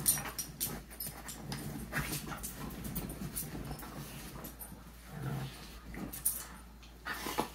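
Two dogs play-fighting on a couch, scuffling and mouthing at each other, with many short rustles and knocks. A brief low dog sound comes about five seconds in.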